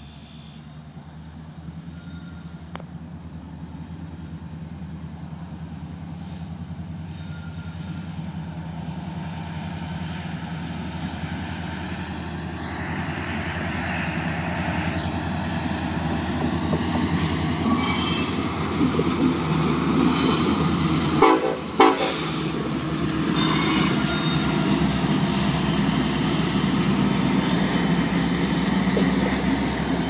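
Freight train departing behind EMD SD70M-2 diesel locomotives: a deep, steady engine drone that grows steadily louder as the locomotives approach, with a Nathan K5LLA five-chime air horn sounding.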